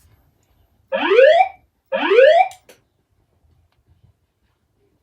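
Notifier DVC voice-evacuation fire alarm sounding its whoop tone through the alarm speakers: two rising sweeps about a second apart, then the tone cuts off with a brief click near the middle.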